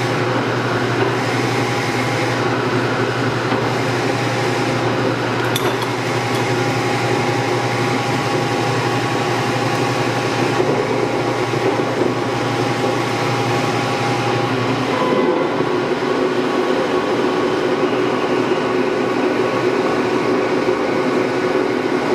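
Warner & Swasey No. 4A square-head turret lathe running on its low speeds: a steady mechanical hum with several steady tones. The running note changes about fifteen seconds in, as the lowest hum drops away.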